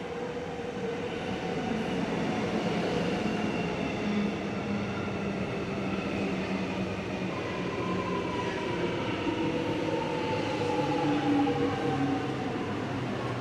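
Electric suburban train with its traction motors whining over a running rumble. Several tones fall slowly in pitch through the middle and later part, as a train does when it slows.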